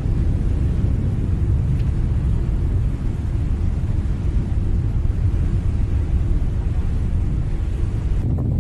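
Steady, deep rumble of the Hunga Tonga-Hunga Ha'apai submarine volcano's eruption column, with no separate blasts.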